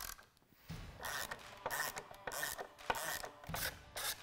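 Ratchet wrench with a T45 Torx bit loosening a motorcycle's rear-rack bolts: a short rasping stroke repeats about three times a second, starting about a second in.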